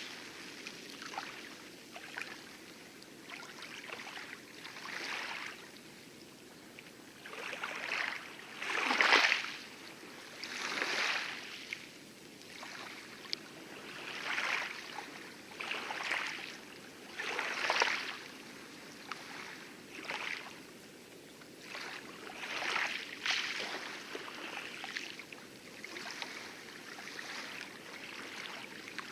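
Light waves lapping and splashing on coral at the lagoon edge, in irregular washes every one to three seconds, over a steady low rush of distant heavy surf.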